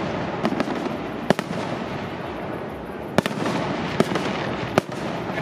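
Fireworks display: several sharp shell bursts, the loudest about a second or so apart, over a dense continuous crackle.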